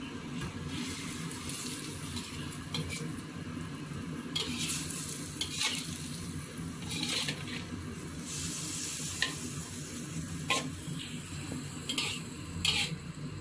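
Spatula stirring a sauced stir-fry in a sizzling pan: repeated short scrapes and clacks of the spatula against the pan, over a steady low hum.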